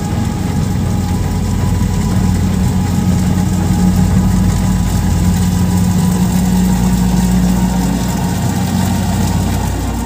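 Kubota DC70 Plus combine harvester's diesel engine running at a steady pitch while it harvests rice.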